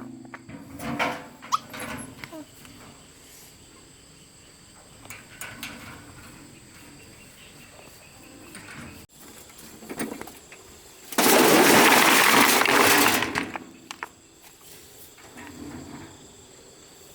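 Stones being handled: scattered knocks of stone on stone, then a loud clattering rush lasting about two seconds, starting about eleven seconds in, as stones are tipped or dragged.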